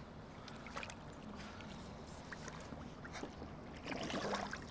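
Water sloshing and splashing at the river's edge, with scattered small clicks and a louder splash about four seconds in.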